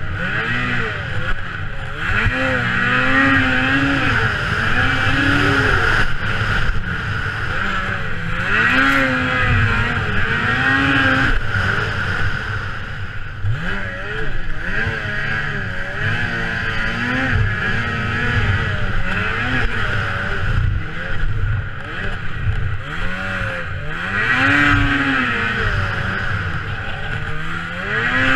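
Racing snowmobile engine, heard on board, revving up and dropping back over and over as it accelerates out of each corner and eases into the next. Its pitch rises and falls every two to three seconds.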